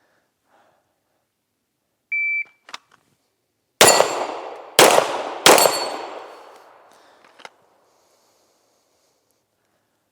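A PACT Club III shot timer's start beep, a short steady tone, then about a second and a half later three pistol shots, the second two close together, with a long ringing tail after them that dies away over a couple of seconds.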